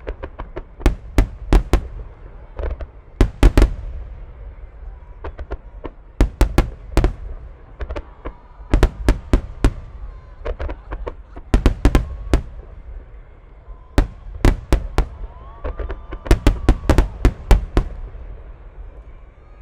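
A barrage of 12-inch aerial firework shells bursting: dozens of sharp bangs, irregular and often in quick clusters of two to four, none of them far apart.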